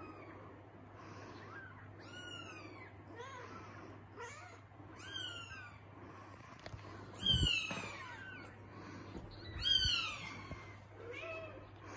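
Newborn Persian kittens mewing: their first meows, about six thin, high calls that fall in pitch, the two loudest about seven and ten seconds in.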